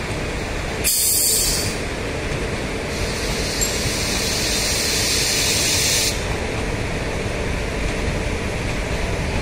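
Passenger train coaches rolling past, a steady rumble of wheels on the rails, with two sudden bursts of hiss: a short one about a second in and a longer one from about three to six seconds.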